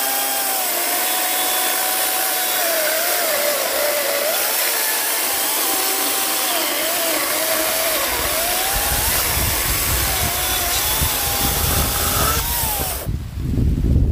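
Parkside Performance 40V brushless cordless chainsaw, on its slower first speed setting, cutting through a thick log: a steady motor whine over the rasp of the chain, its pitch sagging and recovering as the load changes, with heavier low noise in the second half of the cut. The motor stops about a second before the end.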